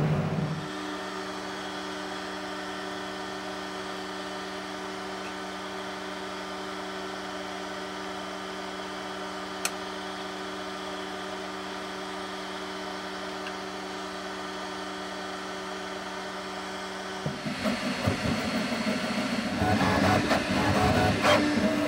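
QIDI X-Smart3 3D printer running: a steady hum with a few held tones, broken by a single sharp click about ten seconds in. Near the end the hum gives way to a louder, uneven mechanical sound.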